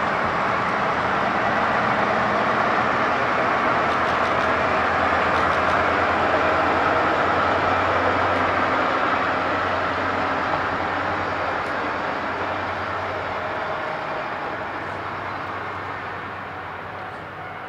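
Two-car diesel railcar train passing on the line, its engine running and wheels rolling on the rails. It grows louder to a peak about halfway through, then fades as it moves away, with wind noise on the microphone throughout.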